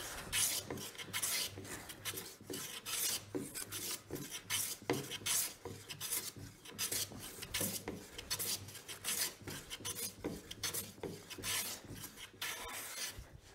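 Hand smoothing plane taking quick repeated strokes along a rough-sawn ash board, its freshly sharpened blade slicing off shavings on every pass.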